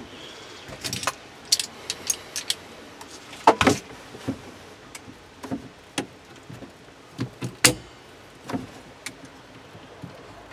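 Metal clicks and clanks of a jump lead's clamp being handled and clipped onto a car battery terminal, irregular and in ones and twos, the loudest about three and a half seconds in and again about seven and a half seconds in.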